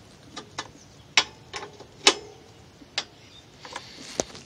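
Open-end wrench clinking on a 10 mm bolt and the steel radiator support bracket as it is fitted and turned: about eight irregular metallic clicks, a couple of them ringing briefly.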